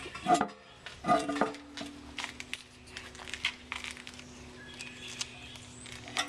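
Clinks and knocks of an old porcelain toilet tank and its parts being handled, the loudest about a second in, over a faint steady hum.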